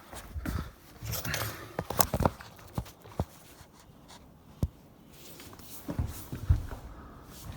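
Irregular knocks, clicks and rustling of tools and plumbing parts being handled, loudest around two seconds in and again near six and a half seconds.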